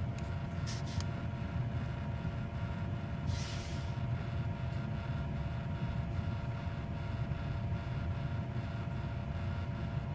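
Steady low machine hum with a few faint higher tones held over it. A brief hiss comes about three seconds in.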